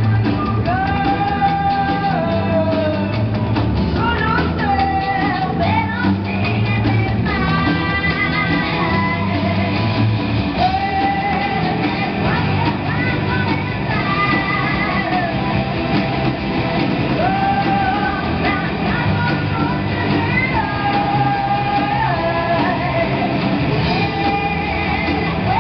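A live rock band playing: a woman sings long held notes with vibrato over electric guitars, electric bass and a drum kit, amplified through PA speakers.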